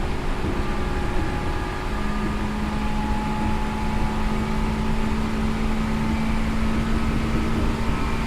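Seibu New 2000 series field-chopper electric train running, heard from inside the car: a steady low rumble of wheels on track, with a steady hum from the drive setting in about two seconds in and holding.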